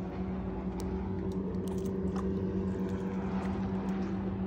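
Boat engine running steadily, a low even hum with a few faint clicks over it.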